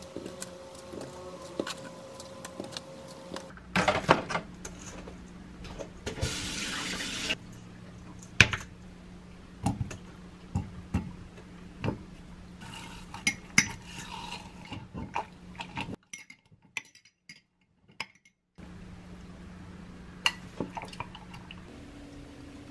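Kitchen prep sounds of strawberries being hulled and put into a glass mug: scattered clinks and taps of a knife, spoon and glassware, with a brief rush of running water about six seconds in. A steady low hum runs underneath.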